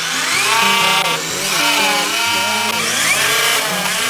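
Toy RC monster truck's electric motor whining and revving up and down several times, over background music.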